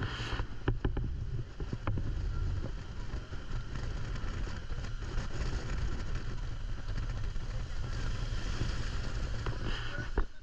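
Moving vehicle on the road: a steady low rumble of engine and road noise, with wind buffeting the microphone and a few light knocks.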